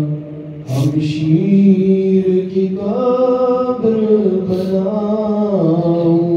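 A man's solo voice chanting an Urdu noha (mourning lament), unaccompanied, in long held notes that slowly rise and fall in pitch, with a brief breath pause about half a second in.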